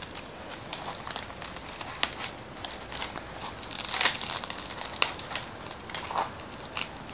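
Crisp baked crust of a Chicago deep-dish pizza crackling and crunching as it is torn apart by hand, in a run of irregular small crackles with the loudest burst about four seconds in.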